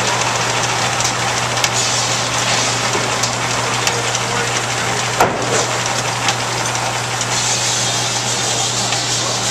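Steam-powered sawmill running: a steady low hum under a dense mechanical clatter, with scattered light clicks and one sharper knock about five seconds in.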